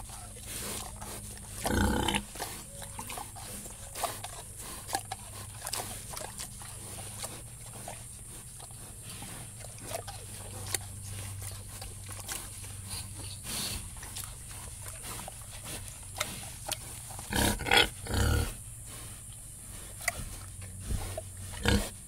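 Several pigs grunting in a sty, with louder grunts about two seconds in and again near the end, over a steady low hum.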